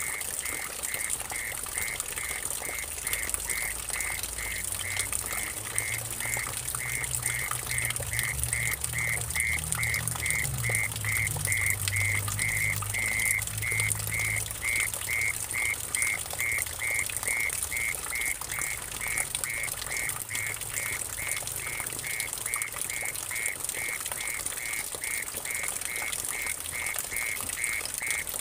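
Mole cricket calling in a steady pulsed buzz, about two pulses a second, over water trickling and splashing into a puddle. A low hum swells and fades in the middle.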